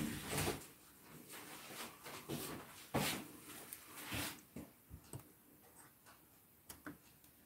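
Faint handling noise of a smartphone being reached for and picked up: soft rustling with a few scattered knocks, the loudest about three seconds in.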